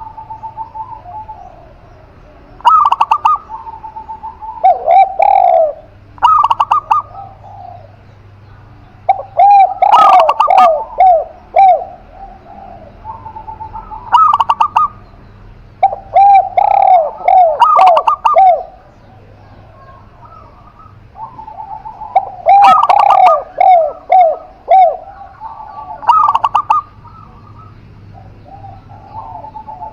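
Spotted dove and zebra dove cooing, phrases of short repeated coo notes coming every few seconds with brief pauses between.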